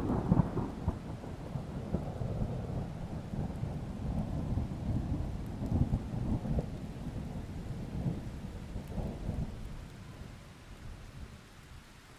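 A thunder sound effect: a sudden crack that rolls into a long, low rumble, swelling twice more before it fades out near the end.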